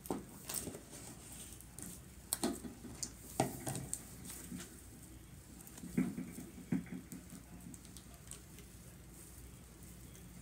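Slime being lifted from a plastic tub and kneaded and squished by hand on a table: irregular soft squelches, pops and clicks, a cluster of them in the first four seconds and two more a little past halfway.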